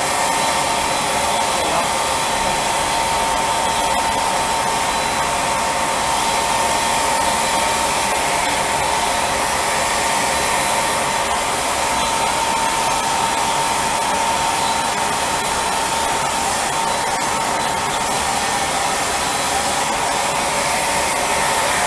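Handheld hair dryer blowing steadily on the skin to dry freshly sprayed tanning solution, with a thin steady whine in the airflow.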